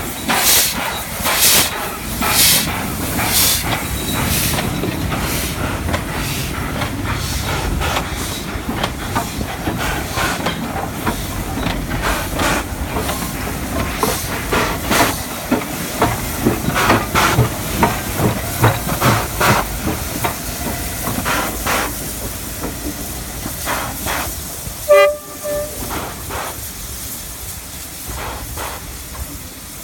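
Two SY-class 2-8-2 steam locomotives working double-headed at low speed: exhaust chuffs at an uneven beat over steam hissing from the cylinder cocks. About 25 s in comes a short whistle blast, the loudest sound, and the chuffing then grows fainter as the engines move off.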